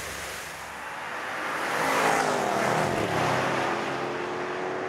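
Porsche Cayenne Turbo's turbocharged V8 running hard as the car drives past at speed on a race track. It swells to its loudest about two seconds in, then fades slowly as it pulls away.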